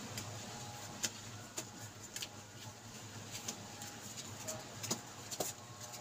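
Labrador retriever puppies shuffling on cardboard: faint scattered clicks and scratches of paws and bodies, with a couple of small squeaks near the end, over a low steady hum.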